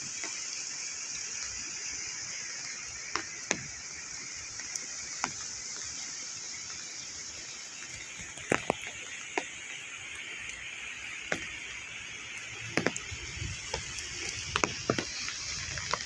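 Steady hiss of rain with scattered sharp ticks of drops striking an umbrella, the ticks coming more often in the last few seconds along with a low rumble.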